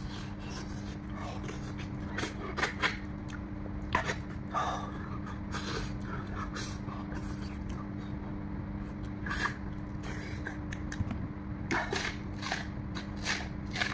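Close-up eating sounds of a man chewing cooked pig's-head meat pulled off the bone by hand: wet chewing, smacking and short sharp clicks scattered through, over a steady low hum. Near the end he bites into a raw red onion.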